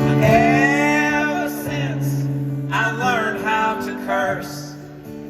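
Live acoustic band music: instruments hold steady notes under a guitar, while a voice sings two long, wavering phrases, one at the start and one about three seconds in.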